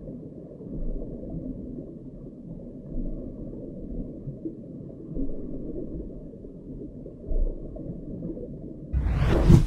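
Muffled underwater ambience: a steady low rumble and gurgle with nothing in the higher pitches. Near the end it cuts sharply to the louder, fuller sound of a car driving, with a brief whoosh.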